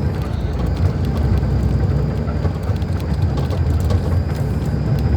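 Iveco-chassis bus's diesel engine running steadily, with a deep, even rumble and a thin high whine that drops a little near the start and then holds level.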